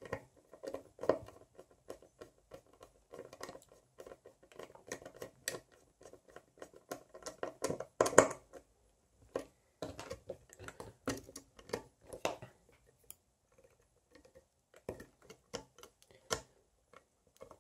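Scattered small clicks, taps and scrapes of hand work on an open LED floodlight: a screwdriver at a screw in the plastic power-supply housing, then fingers pushing wires around the board.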